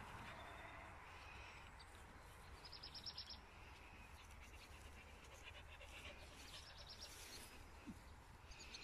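Near silence with a small bird's faint chirping: two quick trills of evenly spaced high chirps, one about two and a half seconds in and another about seven seconds in.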